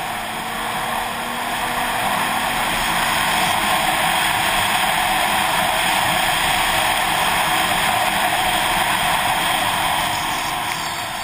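Snowmobile running at speed along a snowy trail: steady engine and track noise mixed with a rush of wind, picked up by a camera mounted on the sled. It grows a little louder a couple of seconds in and eases slightly near the end.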